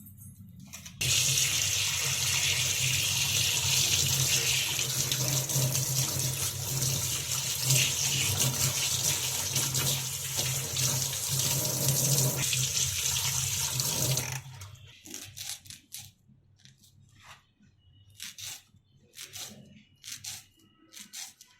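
Kitchen tap running steadily into a sink for about thirteen seconds, then turned off. A few light clicks and knocks follow.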